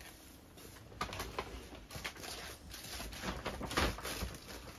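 Scattered light clicks and knocks of small objects being handled and moved about while someone rummages, with a louder knock a little before the end.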